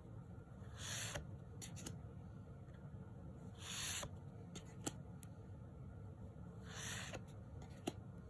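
Tarot cards being slid one at a time off the front of a deck, each slide a short papery swish, three of them about three seconds apart, with a few light ticks between.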